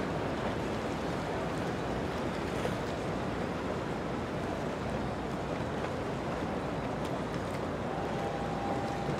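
Triple Mercury 350 Verado outboards on an Intrepid center-console boat running at low speed, a steady low-pitched engine sound mixed with water and wind noise.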